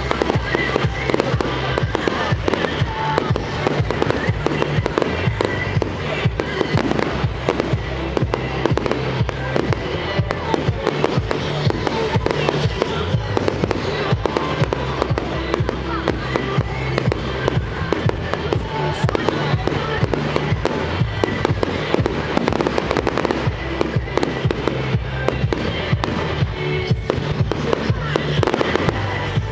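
A fireworks display going off continuously, with many aerial shells bursting and crackling every second. Music plays underneath.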